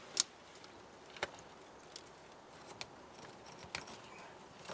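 Wire connectors clicking and rattling as they are handled and pushed together by hand: faint, with a handful of sharp clicks about a second apart.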